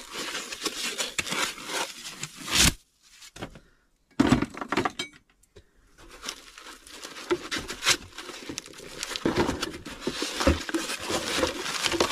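Plastic packaging and foam rustling and crinkling as parts are taken out of a cardboard box, with clinks and knocks of metal brackets and bagged fittings being handled.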